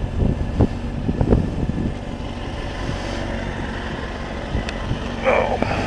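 Kawasaki ZX-6R 636's inline-four engine running as the motorcycle pulls away at low speed, with the choke still on. Uneven for the first two seconds, then steady, with a short louder burst near the end.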